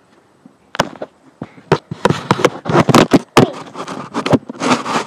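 Handling noise on the camera's microphone: a run of sharp knocks, clicks and rubbing as the phone is gripped and moved, with fingers brushing over it, busiest in the last three seconds.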